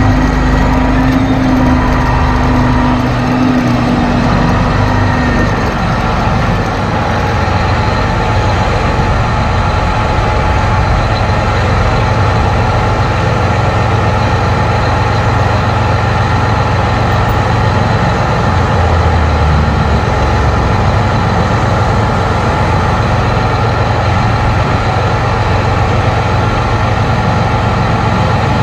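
John Deere 8430 tractor's six-cylinder diesel engine easing down as the tractor comes to a stop, then idling steadily from about five seconds in.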